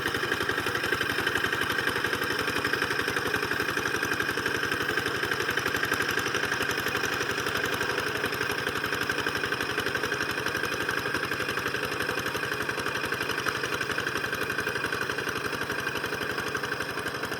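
Engine of a two-wheel hand tractor plowing a rice paddy, running steadily at an even speed with a rapid, regular firing beat.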